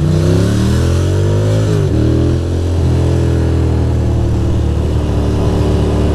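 Ducati Monster 620's air-cooled L-twin engine accelerating. Its pitch climbs for nearly two seconds, drops sharply at an upshift, then climbs again and settles into a steady pull.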